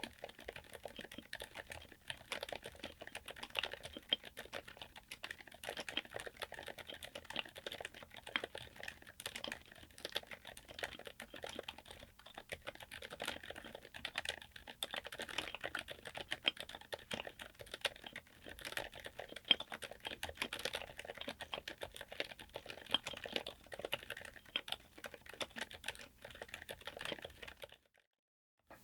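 Continuous fast typing on a mechanical keyboard with Jerrzi Honey Bean silent linear switches on an FR4 plate in an aluminium case: a dense stream of quiet keystrokes that stops abruptly just before the end.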